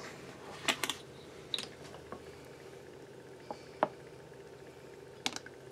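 A handful of brief, faint clicks and taps spread over a few seconds as a plastic bottle and a metal measuring spoon are handled over a glass bowl, with quiet room tone between them.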